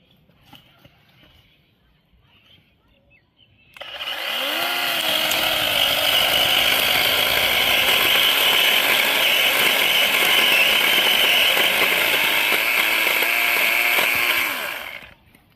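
A small engine-powered tool running loudly for about eleven seconds. It starts abruptly about four seconds in and cuts off near the end, its pitch briefly dipping and rising soon after it starts and again near the end.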